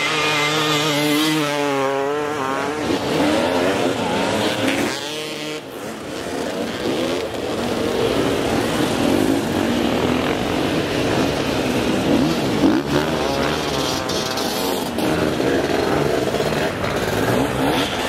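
Several enduro dirt bikes revving hard together as they spin their rear wheels in snow, with engine pitch rising and falling as the riders work the throttle.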